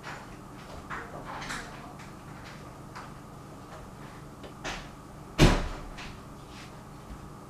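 A few soft knocks and rustles, then a door banging shut about five and a half seconds in, with a low thump.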